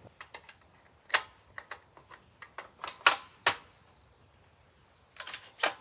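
Metallic clicks and clacks from handling a 16-inch POF .300 Blackout AR-pattern rifle's action and magazine: a run of short, sharp snaps, the loudest about a second in and around three seconds, with a quick cluster near the end.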